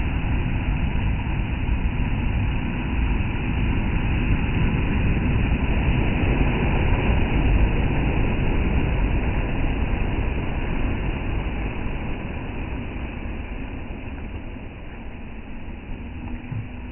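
Ocean surf rumbling on the shore. It swells to a peak about halfway through, then slowly eases off as the wave recedes.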